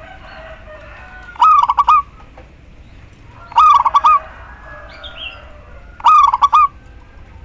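Female zebra dove (perkutut) calling to a male. It gives three short bursts of rapid staccato cooing notes, about two seconds apart. Fainter bird calls are heard in the background.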